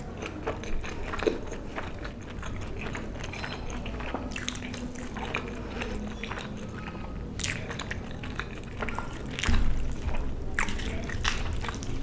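Close-miked eating: wet chewing and mouth clicks, irregular and sticky.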